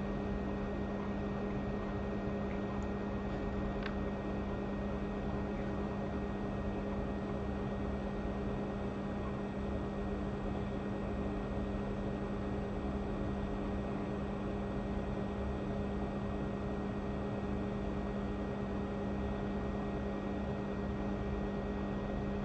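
Hot air rework station blowing steadily on a board-level chip, a constant whir with a low hum, heating the touch IC to lift it off the logic board.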